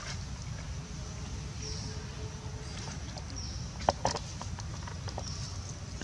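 Forest ambience: a short, high falling chirp repeats about every second and a half over a steady low rumble. A sharp click comes about four seconds in, followed by a few smaller clicks.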